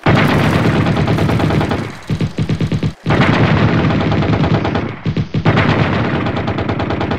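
Long bursts of rapid machine-gun fire, a film gunfire sound effect. The shots thin out just before two seconds in, break off briefly about three seconds in, dip again near five seconds, then run on.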